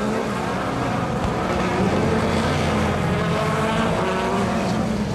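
Several dirt-track race cars' engines at full throttle, pulling away together from the start, their pitch climbing as they rev up through the gears.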